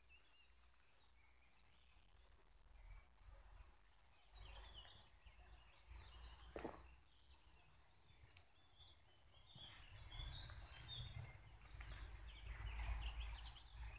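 Near silence: quiet outdoor ambience with faint, scattered bird chirps that grow a little busier in the last few seconds, and a single soft click about six and a half seconds in.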